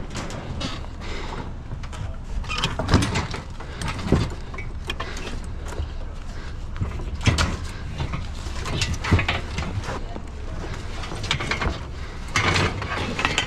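Irregular metal clanks and rattles as scrap metal on a trailer is shifted around and strapped down.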